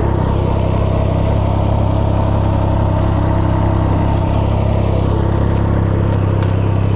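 A 2021 Can-Am Ryker Rally's 900 cc three-cylinder engine idling steadily.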